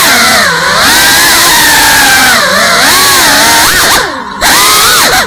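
GEPRC CineLog35 cinewhoop's brushless motors and propellers whining, the pitch sliding up and down with the throttle. About four seconds in the whine drops away briefly as the quad flips, then comes back loud.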